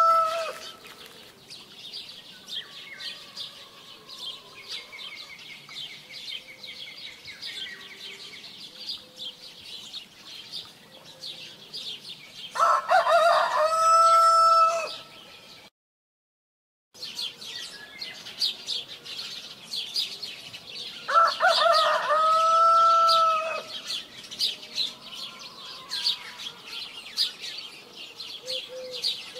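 Rooster crowing: the tail of one crow at the very start, then two full crows of about two and a half seconds each, a little before halfway and again about two-thirds of the way through. Steady high chirping of small birds runs underneath. The sound cuts out completely for about a second between the two crows.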